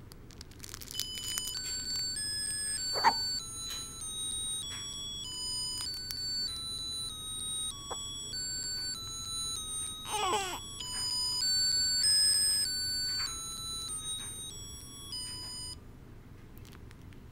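Electronic beeping tune of plain single notes, each held about half a second, playing for about fifteen seconds and then stopping. A child's voice breaks in with a short sharp sound about three seconds in and a falling squeal around ten seconds.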